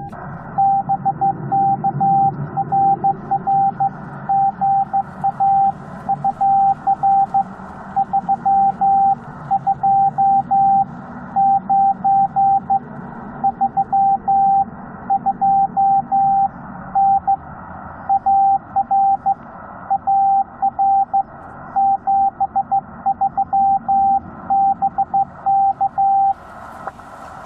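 Morse code from a Yaesu FT-891 transceiver: a single steady mid-pitched beep keyed on and off in dots and dashes, over a steady hiss of band noise. The keying stops about a second before the end.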